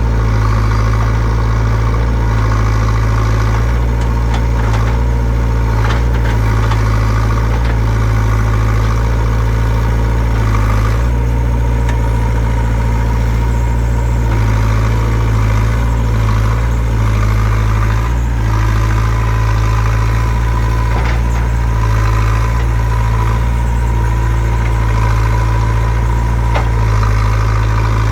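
JCB 3CX backhoe loader's four-cylinder diesel engine running steadily, its deep note rising and falling a little with load, with a few sharp knocks at intervals.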